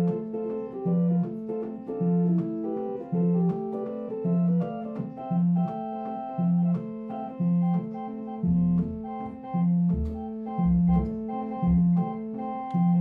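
Home spinet organ playing a blues, with a low note or chord pulsing about once a second under sustained chords and melody notes. A few deeper bass notes come in from about eight and a half seconds to twelve seconds in.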